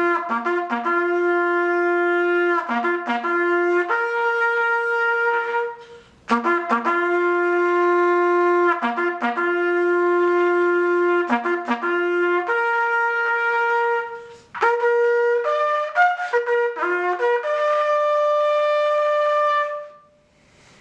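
Solo trumpet playing a slow bugle call: long held notes on only a few pitches, each led in by short quick notes. There is a brief break about six seconds in and another near fourteen seconds. It ends on a long high note that stops about a second before the end.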